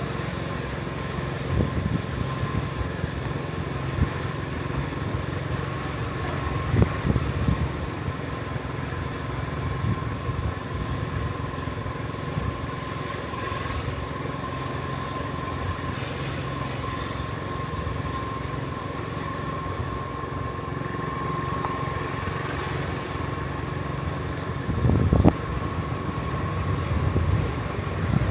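A vehicle driving along: a steady low engine and road rumble under a thin, steady whine, with a couple of louder bumps about seven and twenty-five seconds in.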